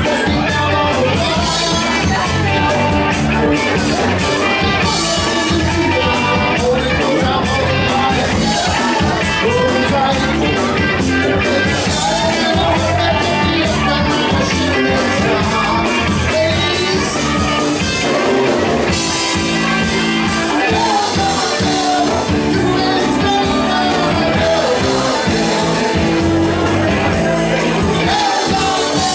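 Live rock band playing loudly, with electric guitar, drums and a singer.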